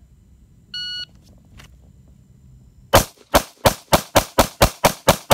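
A shot timer's start beep, then about two seconds later a handgun drawn from concealment fires a rapid string of ten shots, about four a second.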